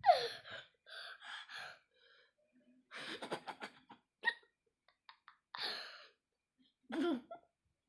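A child's short squeal falling steeply in pitch, followed by breathy, hissing bursts and brief vocal sounds.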